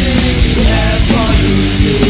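Loud grunge-style rock music with distorted guitars, drums and a singing voice.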